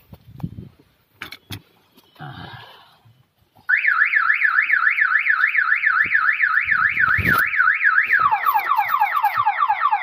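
Car alarm siren of a Mitsubishi Montero going off about four seconds in, warbling up and down about three times a second, then switching a few seconds later to a faster run of falling chirps. The alarm module is what the mechanics blame for the no-start. Before the siren there are a few faint clicks and rustles of hands in the wiring under the dash.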